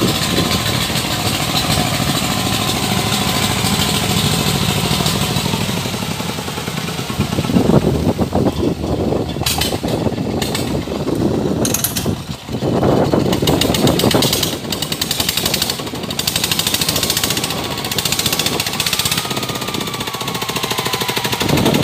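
Long-tail boat engine running steadily with a fast, even beat, pushing a loaded boat along a canal; it swells louder a couple of times.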